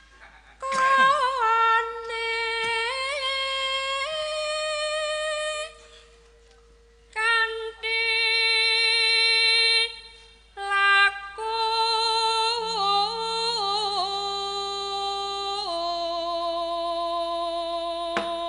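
A Javanese sindhen (female gamelan singer) singing a slow, long-held melody with wavering ornaments, amplified through a microphone. She sings in three phrases, with short breaks about six and ten seconds in.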